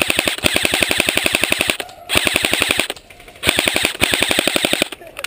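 Airsoft gun firing on full auto in three long bursts of rapid, evenly spaced shots, with short pauses between the bursts.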